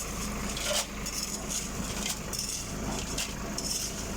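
Tractor engine running steadily while driving a transit concrete mixer through its PTO, with irregular rattling from the turning mixer.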